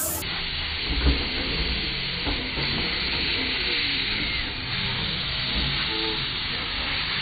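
Miniature 5-inch-gauge live-steam locomotive hissing steadily as it vents steam from its cylinders while pulling slowly away, with a low thump about a second in.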